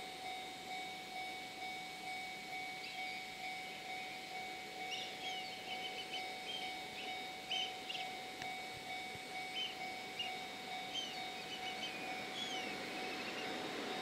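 Japanese level-crossing alarm ringing with a steady, evenly repeating ding while the crossing signals flash, warning of an approaching train. Birds chirp over it from about five seconds in.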